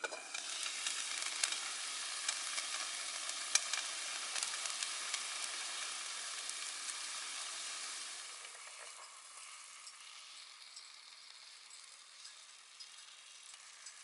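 Food sizzling in hot oil in a frying pan, starting suddenly as if just put in, with a loud crackling hiss that settles to a quieter sizzle about eight seconds in.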